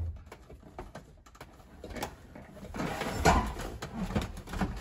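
Knocks, clicks and rubbing as a truck's plastic center console is lifted and shifted on the cab floor, with one louder bump about three seconds in.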